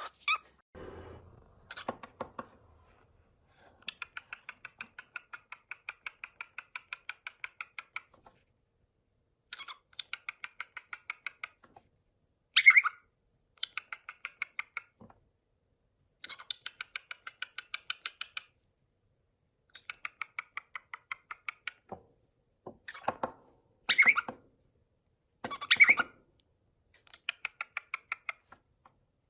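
A parrot's rapid repeated clicking calls, about six a second, in runs of two to four seconds with silent gaps between, broken by three much louder short sharp squawks.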